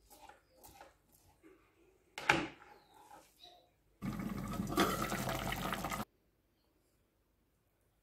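Water poured in a steady stream onto dry vermicelli for about two seconds, stopping abruptly. Before it come light scrapes and clicks on a plastic cutting board and one sharp knock about two seconds in.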